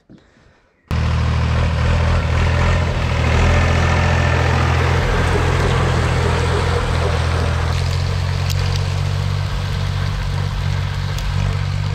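Tractor engine running steadily while pulling a fertilizer spreader that is broadcasting potassium chloride. It starts abruptly about a second in.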